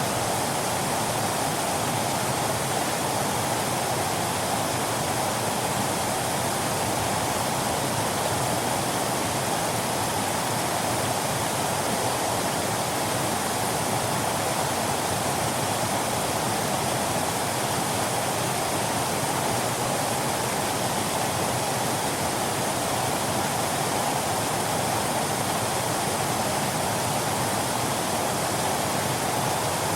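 Waterfall: a steady, unbroken rush of falling water, strongest in the middle of the range.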